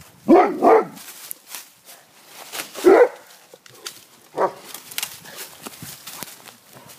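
Dog barking at a neighbour: two quick barks right at the start, another about three seconds in and a softer one a little later, with dry leaves crackling and rustling between them.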